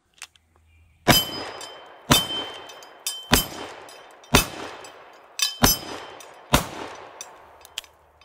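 Single-action revolver fired six times at a steady pace, about one shot a second, the hammer cocked by hand before each shot. Steel target plates ring after the hits.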